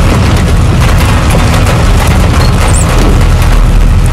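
A loud, steady deep low rumble, with the hiss of heavy rain over it.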